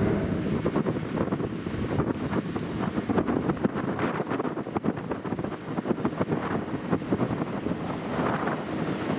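Wind buffeting the microphone in irregular gusts over a steady rush of noise, as heard on a moving ferry.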